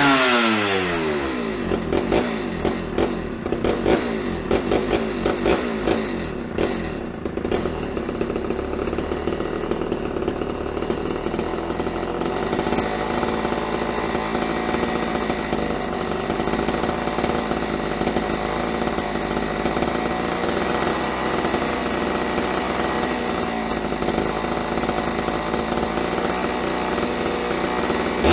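Homelite Super XL Automatic two-stroke chainsaw engine, bar and chain off, dropping from a high rev, running unevenly for several seconds, then settling into a steady idle; it revs up again right at the end. Its carburetor is being adjusted while it runs to get it to keep idling.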